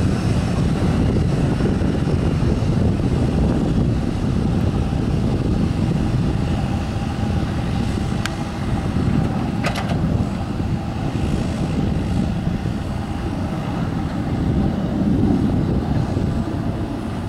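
Twin-engine turboprop aircraft taking off and climbing away: a steady engine and propeller drone with a faint held whine. Two brief clicks sound about halfway through.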